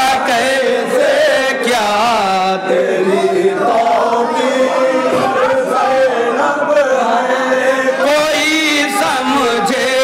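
A group of men chanting a manqabat, an Urdu devotional poem, together in chorus, with several voices overlapping in a steady sung recitation.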